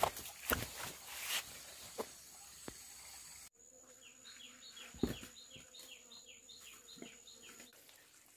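Bare feet and hands moving over stream-bed rocks and dry leaves: rustling with a few sharp knocks. After a sudden cut, forest insects give a steady high whine and a quick run of short, falling chirps, about three a second, with a single thump partway through.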